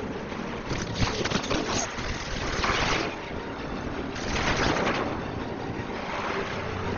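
Car-chase sound mix: speeding cars with engines and rushing road and wind noise. Several louder surges and a short sharp hit about a second in.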